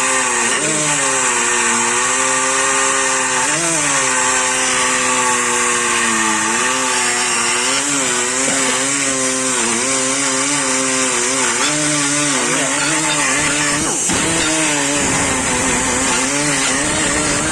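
Angle grinder with a cutting disc running steadily while cutting metal, its whine dipping briefly in pitch now and then as the disc is loaded, with a rougher gritty burst near the end.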